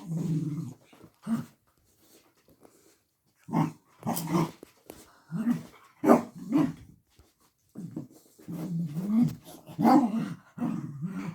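A dog growling and grumbling in a string of short, low vocal bursts with some whines. It is worked up over a toy it can't reach.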